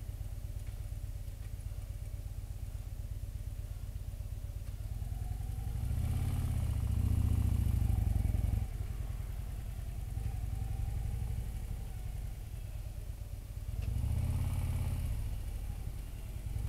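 Touring motorcycle's engine running at low speed in town traffic, heard from the rider's seat: a steady low rumble that swells as the throttle opens about six seconds in, drops off sharply a couple of seconds later, and swells again near the end.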